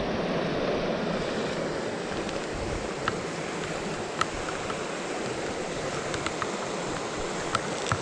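Mountain stream rushing steadily past a rocky bank, with a few faint clicks scattered through.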